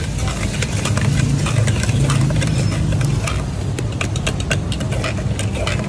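A metal ladle clinking and scraping against small metal cooking pots of simmering mutton stew, in many short irregular clicks, over a steady low rumble that swells about a second in.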